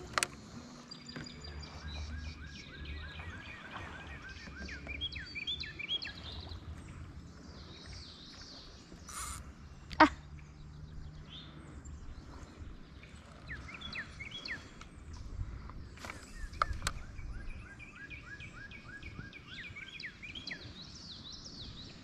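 A songbird singing outdoors: runs of quick, evenly repeated chirping notes, in two spells, over a steady low outdoor rumble. A single sharp knock sounds about halfway through.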